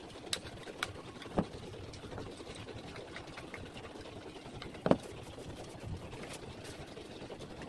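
Clicks and metal knocks from an A5 manual hot foil stamping and die-cutting press being handled, the loudest knock about five seconds in, over a steady low hum.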